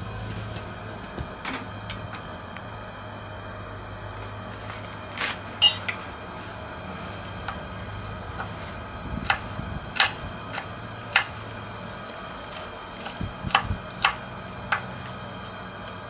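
Kitchen knife cutting vegetables on a wooden cutting board: scattered sharp knocks on the board, a few about five seconds in and a run of them in the second half, over a steady low hum.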